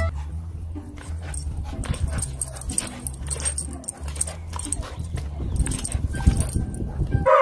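A dog whimpering and yipping, over a steady low rumble with scattered short clicks and knocks.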